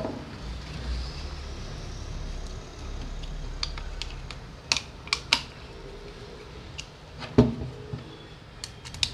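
Small clicks and taps of little angle-grinder parts being handled and fitted together by hand: a few sharp clicks in the second half, the loudest about seven seconds in, over a low rumble of passing road traffic.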